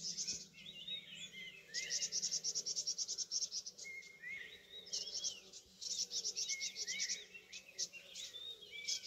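Small birds chirping with many short rising calls, and bursts of a rapid, high-pitched trill that come back every few seconds.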